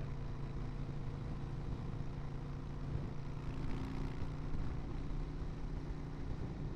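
Harley-Davidson Sportster V-twin with shotgun pipes running steadily while the bike is ridden, its engine note holding an even pitch.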